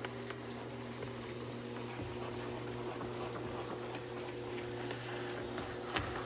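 BISSELL SpinWave spin mop running, its motor humming steadily while the two spinning pads scrub soapy, wet deck boards. One sharp click near the end.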